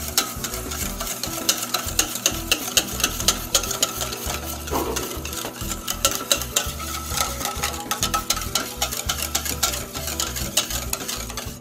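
Whisk beating a vinaigrette of vinegar, mustard and olive oil in a stainless steel bowl, its tines clicking and scraping against the metal in a quick, even rhythm. The oil is being emulsified into a thick, creamy dressing.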